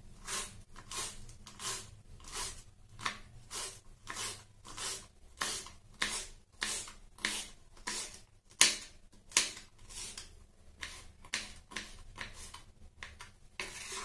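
Kitchen knife chopping green bell pepper on a wooden cutting board: steady, even strokes about one and a half a second, each a crisp cut ending in a tap on the board.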